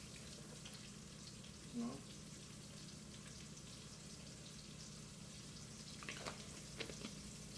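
Faint steady sizzle of the stew base (oil, tomato paste and mushrooms) cooking in a pot over a gas burner, under a low steady hum, with a few faint clicks near the end.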